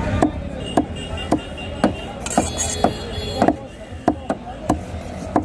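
Knife chopping a strip of tuna into cubes on a wooden block: about ten sharp chops, roughly two a second.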